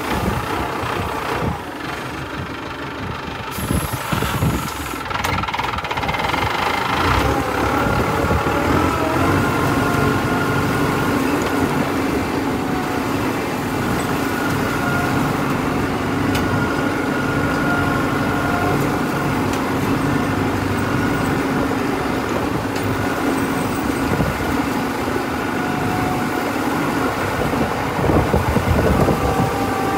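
High-clearance tractor's engine running steadily under load as it pulls a weeding cultivator through sugarcane rows.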